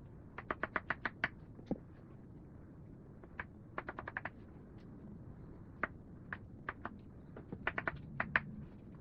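Knife chopping on a cutting board, dicing potatoes: three quick runs of sharp taps, about five or six a second, with a few single taps between.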